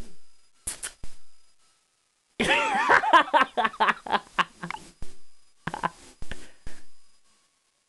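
A house cat giving an angry, wavering yowl-growl that starts about two and a half seconds in and breaks into shorter bursts: a hostile warning directed at the person.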